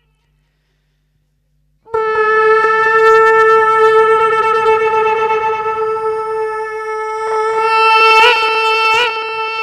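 A man making an imitation sound with his mouth into a microphone through cupped hands: after about two seconds of silence, one long steady held note begins and wavers slightly near the end.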